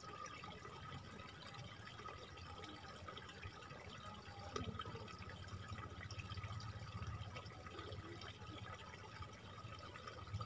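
Faint, steady trickle and gurgle of water running in a small irrigation ditch.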